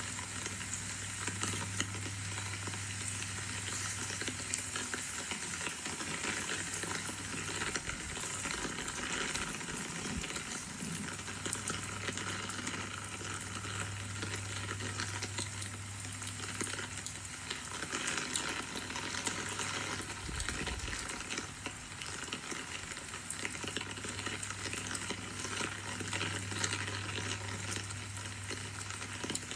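Rain falling steadily, a crackly hiss of many small drops, with a low steady hum underneath that drops out and returns a few times.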